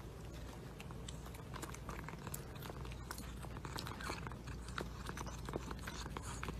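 A white long-haired cat nibbling and chewing at a croissant: a run of small crisp crackles and clicks from the flaky pastry, over a low steady hum.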